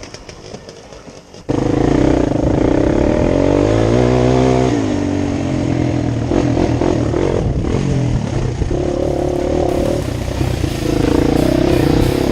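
Engine rebuilt with a Wiseco piston kit running. It comes in suddenly about a second and a half in and is revved up and down several times.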